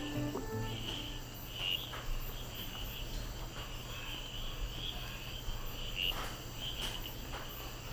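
Chorus of night insects such as crickets: a steady high chirring that swells and fades every second or so.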